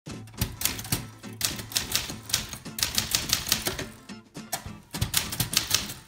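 Manual typewriter being typed on: type bars striking the paper on the platen in quick, uneven runs of about four to six strokes a second, with a brief pause a little after four seconds.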